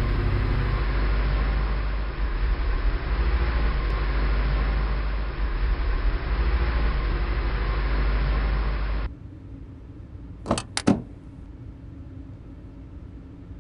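Car driving up: a steady engine and road noise for about nine seconds that stops abruptly. A moment later come two quick clicks of the car's doors opening.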